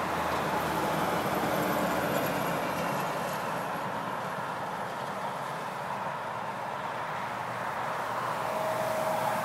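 Steady road traffic noise: tyres and engines of vehicles passing on the highway, swelling slightly as vehicles go by, with a faint tone near the end.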